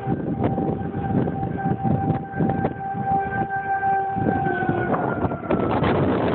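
A distant siren holding one steady pitch, dipping slightly and fading out about five seconds in, under heavy wind noise on the microphone.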